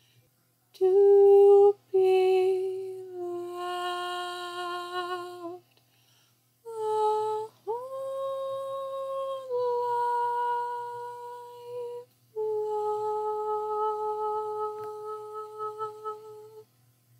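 A woman humming a slow melody without words, holding long notes with vibrato in about five phrases separated by short pauses, one of them starting with an upward scoop about eight seconds in.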